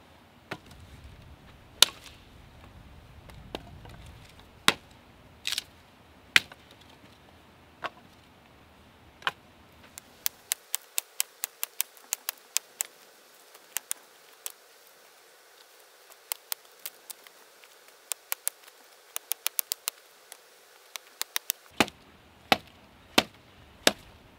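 Sharp chopping strikes. A few come singly, seconds apart, then they fall into quick runs of about four to six a second, with the loudest ones near the end.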